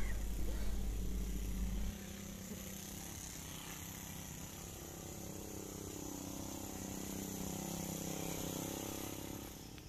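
Brush cutter engine running steadily, swelling a little about seven seconds in and easing off near the end.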